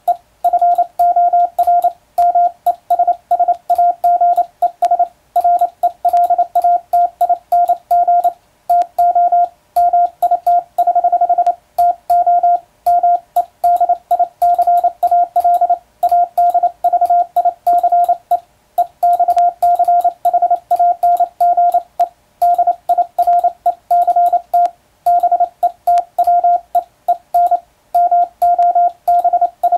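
International Morse code sent with an electronic keyer: a single steady tone keyed on and off in fast dots and dashes, with short gaps between letters and words.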